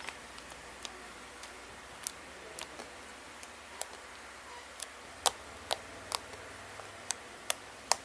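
Thick blue slime being squeezed and folded by hand, giving irregular sharp clicks and pops, louder and more frequent in the second half.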